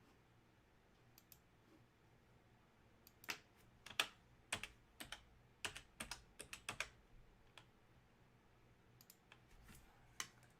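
Computer keyboard typing: an irregular run of quiet keystroke clicks for a few seconds, with a few stray clicks before and after and near silence between.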